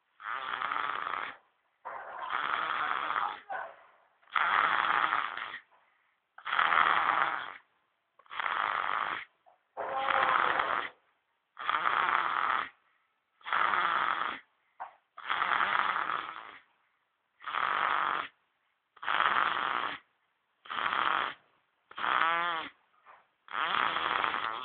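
Baby snoring in a steady rhythm: a rasping snore about every one and a half to two seconds, with short silences between breaths. One snore near the end carries a squeaky, rising whistle.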